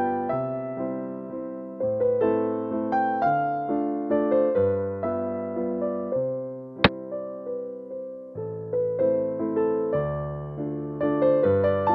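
Background piano music, a slow line of single notes. About seven seconds in there is one sharp click, the sound effect of a xiangqi piece being set down on the board.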